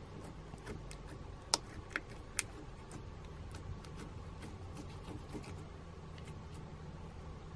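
Clear slime mixed with glitter and sequins being stirred and pressed with a plastic spoon, giving a continuous run of small sticky clicks and pops. Three sharper clicks come close together about one and a half to two and a half seconds in.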